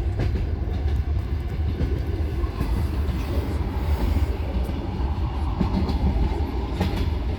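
Steady low rumble of a vehicle on the move, with scattered light knocks and rattles.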